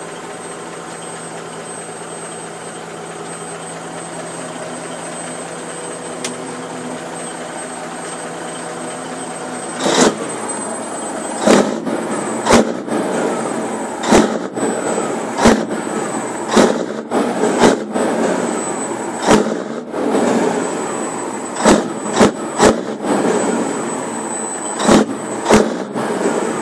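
Ford LTL truck's diesel engine idling steadily, then from about ten seconds in revved in a string of short, sharp blips, about a dozen or more, at irregular intervals.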